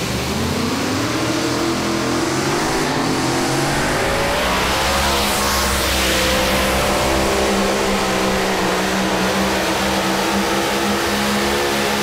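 Modified pulling tractor's supercharged engines running hard at high revs under load while dragging the weight sled. The pitch climbs in the first couple of seconds, climbs again about four seconds in, then holds high and steady.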